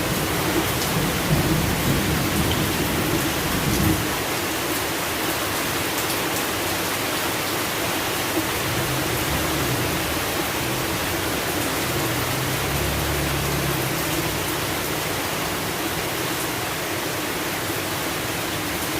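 Steady rain falling, with a low rumble of thunder that dies away about four seconds in.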